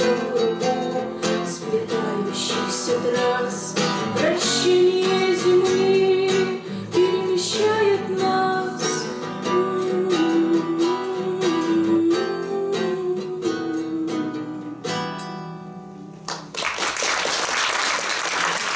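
A woman singing long held notes to her own strummed acoustic guitar, ending on a final chord that rings out about fifteen seconds in. Audience applause follows for the last couple of seconds.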